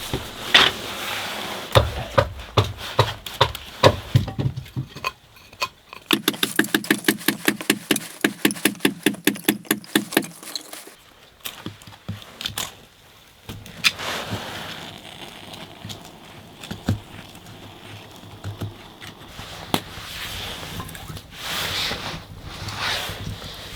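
Firewood being split and sawn by hand: a run of irregular knocks from a splitting axe, then about four seconds of quick, regular hand-saw strokes, about five a second, with a ringing note from the blade, then softer scraping.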